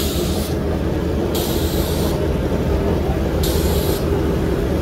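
Drag motorcycle engines idling with a steady low rumble, broken by three short hisses of air or spray, each about half a second long.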